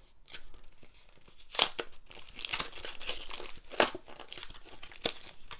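Trading-card three-pack blister pack being opened by hand: the cardboard backing is torn and pulled away from the clear plastic blister shell, giving crinkling plastic and tearing card with a few sharp snaps. It starts about a second in.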